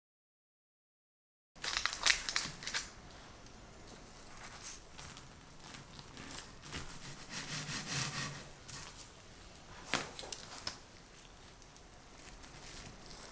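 After about a second and a half of silence, a long knife presses and cuts through a crisp, sugar-dusted vanilla biscuit strip, giving crunching and crackling with sharp cracks. The biscuit rustles as it is lifted off its paper.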